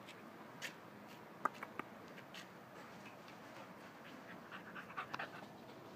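Young boxer puppy panting quietly, with a few faint sharp clicks.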